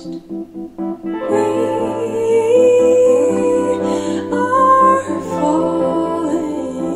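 A female vocal song played through Polk Audio R100 bookshelf speakers. A few plucked guitar notes give way, about a second in, to long held chords over a steady bass, with a female voice gliding between sustained notes.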